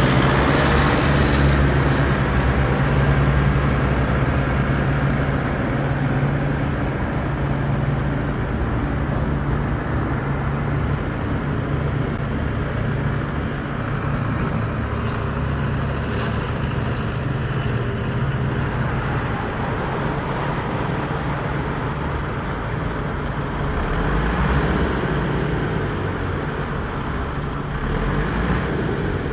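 Radio-controlled construction models (trucks, dozer, excavator) running with a steady drone of motor and gear noise.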